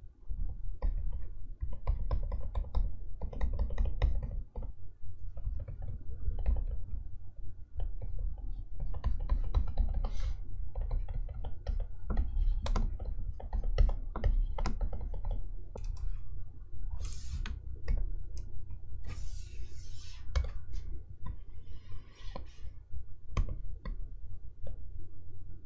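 Stylus tip tapping and scratching on the screen of an XP-Pen Artist 15.6 Pro pen display during sketching: irregular light taps and clicks, with a few longer scratchy strokes past the middle.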